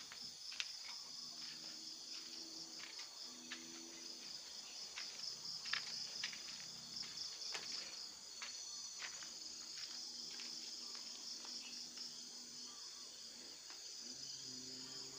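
A steady, high-pitched chorus of chirping insects outdoors, with scattered soft clicks and taps.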